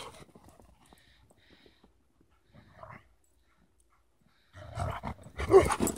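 Dogs growling and giving a short bark as they play, coming in a burst of rough noises in the last second and a half after a mostly quiet stretch.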